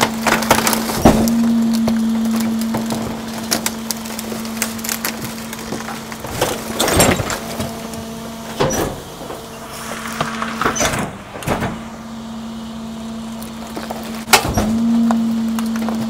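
Garbage truck's compactor blade crushing trash, with wood splintering and cracking in repeated sharp snaps over a steady hum from the truck that lifts in pitch about a second in and again near the end.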